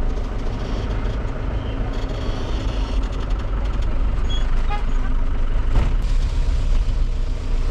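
Tata Sumo engine running steadily, a continuous low rumble.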